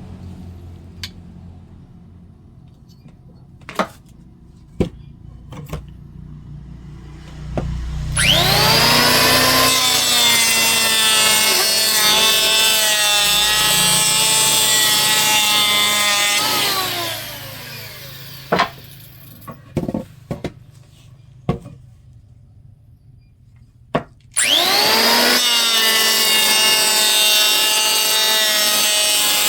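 Electric woodworking power tool cutting wood: after a few scattered knocks, its motor spins up with a rising whine about 8 s in, runs loud and steady for about eight seconds, then winds down with falling pitch. A few more knocks follow, and about 24 s in it starts again abruptly and runs loud.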